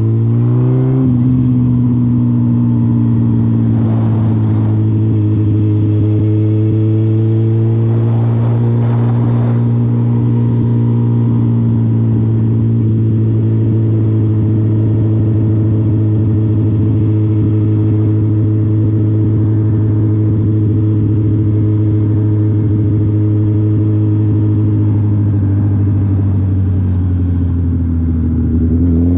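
2020 Suzuki Hayabusa's inline-four engine under way on a ride. The revs climb briefly and drop about a second in, then hold at a steady cruise. Near the end they dip and begin to rise again.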